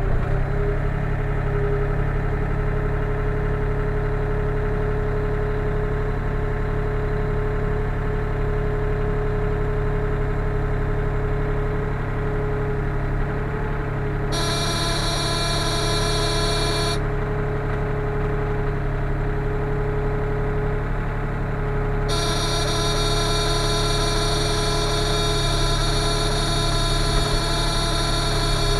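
Sany SY35U mini excavator's diesel engine running steadily, heard from inside the cab. A high whine comes in sharply twice, for about three seconds midway and again for the last several seconds.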